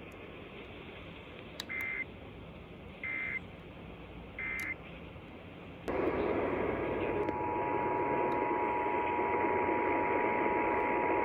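Three short Emergency Alert System end-of-message data bursts about a second and a half apart, then a switch to hissy radio reception with the EAS two-tone attention signal (853 and 960 Hz) holding steady.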